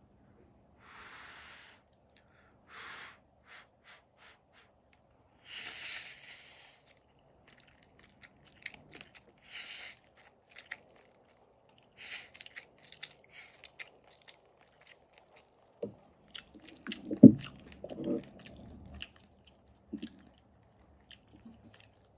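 Spaghetti in sauce being stirred and twirled with a utensil in a steel pot: soft wet squishes and small clicks of the utensil against the pot. There are a few short hissy bursts in the first ten seconds and one heavier knock about seventeen seconds in.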